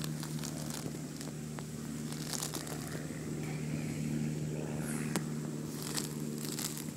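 A steady low mechanical hum with scattered crackles and rustles over it.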